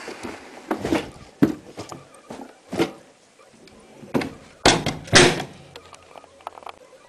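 A washing machine being handled, its door and cabinet giving about six irregular knocks and thuds, the loudest two close together around five seconds in.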